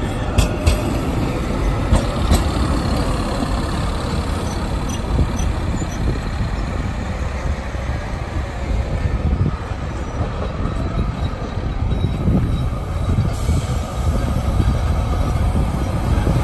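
GTT 5000-series articulated trams running past on street track: a steady rolling rumble, with a few sharp clicks in the first couple of seconds.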